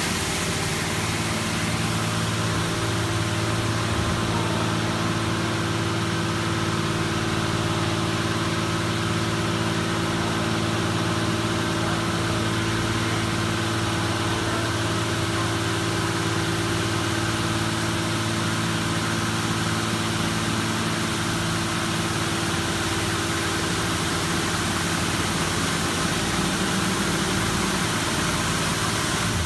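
A Ryko Soft Gloss Maxx car wash running: a steady machine hum under the hiss of water spray.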